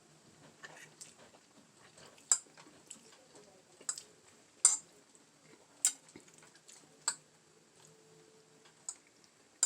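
A metal utensil clicking against a dish, about six sharp, irregularly spaced clinks.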